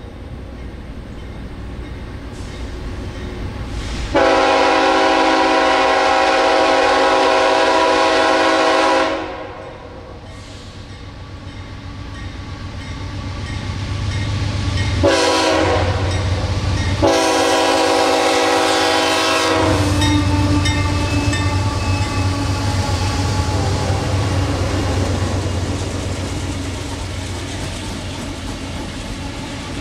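Diesel freight locomotive's multi-note horn blowing for a grade crossing: a long blast about four seconds in, a short one about fifteen seconds in, then another long blast. After that the lead locomotives run past with a heavy engine rumble and wheels clacking over the rail joints.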